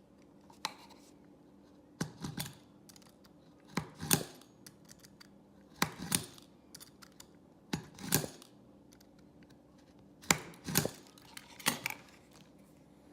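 Stanley knife blade drawn along the seam of a sealed plastic car key remote case, cutting it open: short, sharp scraping strokes, about one every two seconds.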